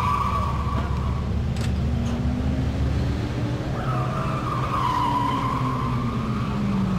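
Nissan 240SX 'Sil80' drift car sliding sideways: its tires squeal, fade about a second in, then squeal again from about four seconds in, while the engine note rises and then falls.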